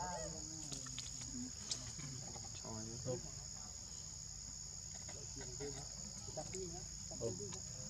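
Steady high-pitched drone of insects, with short faint voice-like calls now and then.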